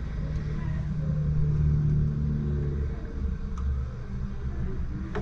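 A low, steady engine rumble with a hum that swells about a second in and eases off near three seconds, like a motor vehicle running or passing by. A few faint light clicks sound over it.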